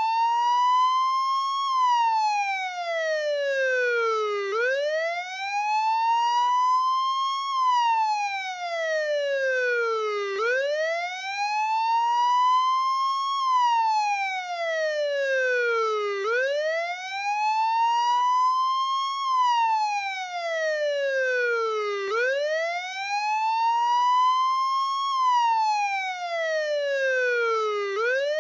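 Police siren wailing, pitched down. Its tone climbs quickly, then slides slowly back down, and the cycle repeats about every six seconds, five times over.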